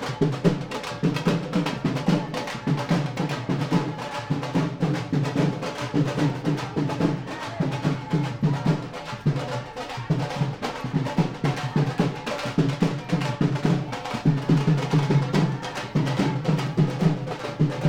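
Drum-led music with a fast, dense, steady beat.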